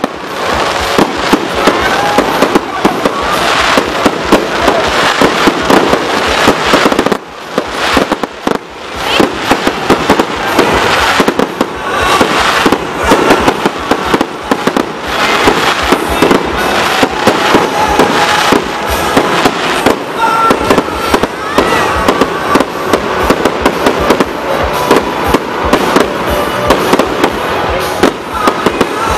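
Fireworks display: shells bursting in quick succession, a dense string of bangs and crackles, with a brief lull about seven seconds in.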